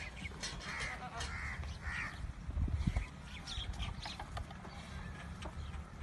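A crow cawing three harsh times in the first two seconds, over a steady low rumble with a louder low thump near the middle.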